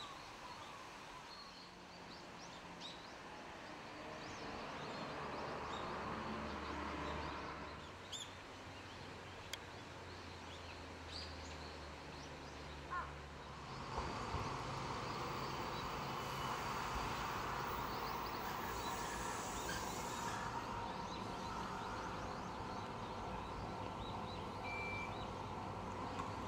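Quiet outdoor ambience with a low hum, then, about halfway through, an electric train comes into the station. Its running noise rises suddenly and stays up, with steady whining tones over it until it stands at the platform.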